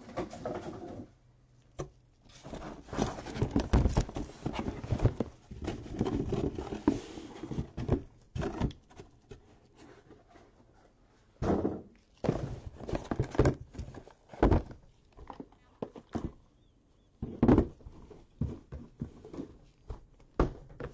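Shrink-wrapped trading-card boxes being lifted out of a cardboard case and set down on a table: a few seconds of rustling and scraping, then a series of separate thunks as the boxes are put down.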